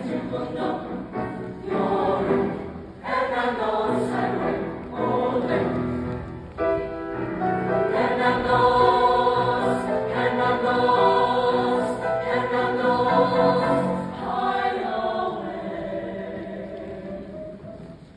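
Mixed choir of men and women singing a show tune: short, broken-up phrases at first, then a long, loud held chord about eight seconds in that eases off and fades toward the end.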